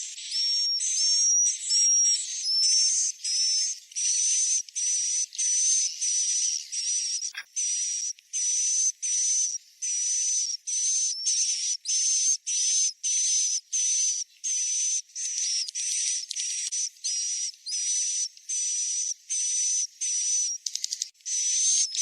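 Recorded swiftlet roosting call ('suara inap') used to lure swiftlets into a swiftlet house: a fast run of short, buzzy, high chirps with a thin whistle in each, about two a second. A single short click comes about seven seconds in.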